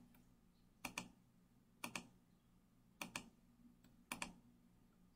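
Faint computer mouse clicks: four quick press-and-release double clicks about a second apart.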